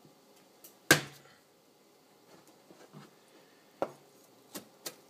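A broad cleaver slapped flat onto garlic cloves on a plastic cutting board, with one loud smack about a second in. Near the end the blade starts chopping the crushed garlic, knocking on the board about three times a second.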